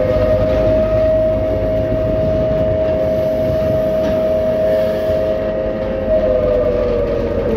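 Train horn held in one long continuous blast of two close notes, sliding up into pitch, holding steady and sagging near the end, over the low rumble of the train running.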